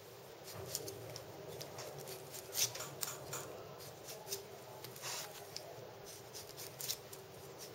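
Kitchen knife blade shaving the surface of a peeled pineapple, a run of short crisp scrapes at irregular intervals, one louder stroke about two and a half seconds in. The strokes trim off leftover bits of green rind around the eyes.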